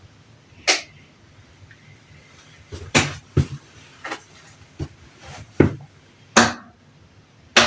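Whirlpool top-load washer giving a series of about eight sharp clicks and knocks, irregularly spaced, as it starts a drain-and-spin cycle and its lid lock is expected to engage.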